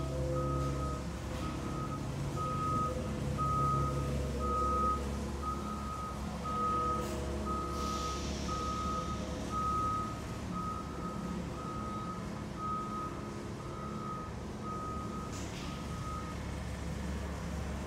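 Belt conveyor and drive machinery of an aggregate-loading line running with a steady low hum, while an electronic warning beeper sounds about once a second and stops near the end.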